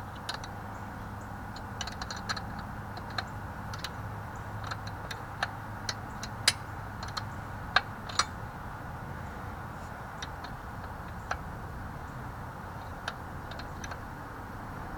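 Irregular metallic clicks and taps of a wrench working a motorcycle's rear chain adjuster, a few sharper clinks among them, over a low steady hum.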